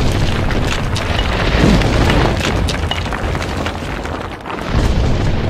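Cinematic boom sound effect: a deep rumbling blast with crackling debris, dipping briefly about four seconds in and swelling again with a second boom.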